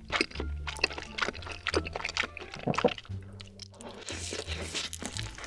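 Close-miked eating: wet smacking and chewing of food in a spicy red sauce, then a bite into fried chicken near the end. Background music with steady low notes runs underneath.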